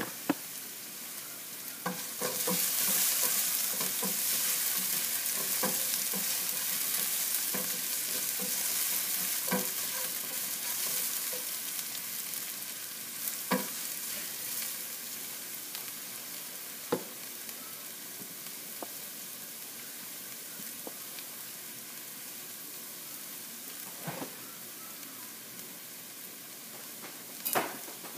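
Julienned ginger sizzling in oil in a nonstick frying pan as it caramelizes, stirred with a spatula that taps and scrapes the pan now and then. The sizzle swells about two seconds in and slowly dies down over the second half, and there is a sharp knock near the end.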